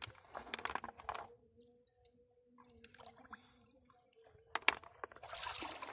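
Water splashing and sloshing in the shallows as a hooked carp is hand-lined in to the stony edge, with a louder burst of splashing about five seconds in as the fish is lifted out of the water.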